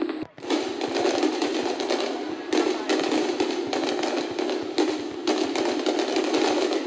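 Fireworks display: aerial shells bursting in a dense, rapid run of bangs, pops and crackles, swelling in several louder surges. The sound drops out briefly just after the start.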